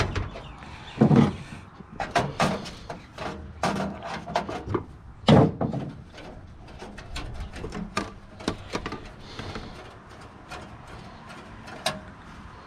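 Clicks, clinks and knocks of metal computer-scrap parts being pulled apart and handled by hand, with two heavier thuds about a second in and again about five seconds in.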